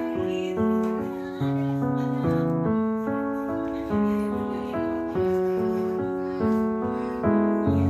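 Piano or keyboard music: a slow melody of held notes over sustained chords, a new note or chord about every second.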